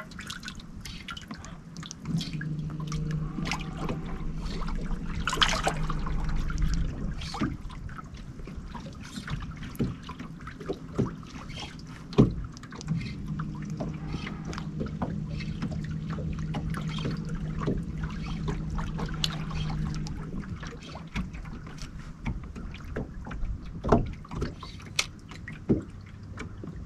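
Boat's electric trolling motor humming steadily in two runs of several seconds each, over scattered light taps and clicks.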